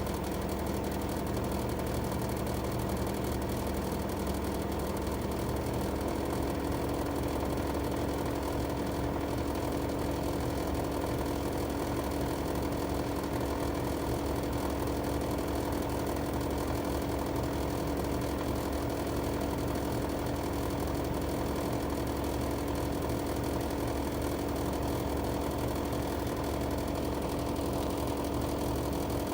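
Outdoor unit of a Panasonic LX-series air conditioner running with a steady hum and a prominent tone, which changes about six seconds in. This is the abnormal noise the unit has made since it was new.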